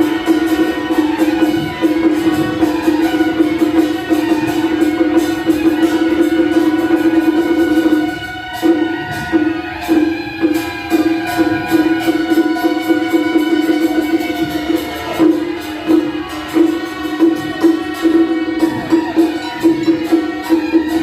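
Traditional-style music: one note held throughout over percussion, which in the second half falls into an even beat of strokes about every half second or so.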